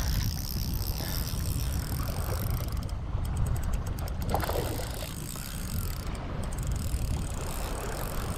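Steady wind rumble on the microphone, with faint clicks from a small Shimano Twinpower spinning reel being wound in while a hooked fish pulls on an ultralight rod.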